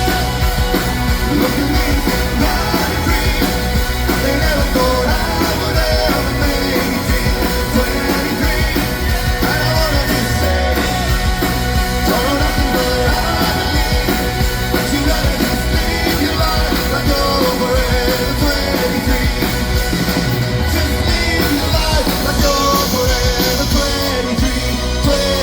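Live rock band playing a song, with a male lead vocalist singing over guitars and drums.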